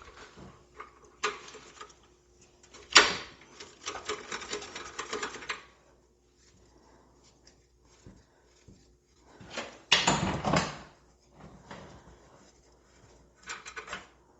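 Workshop handling noises during a motorcycle oil drain: tools and a drain pan knocking and clattering. A sharp knock about 3 s in is followed by a few seconds of rattling, with a heavier clatter about 10 s in and lighter clicks between.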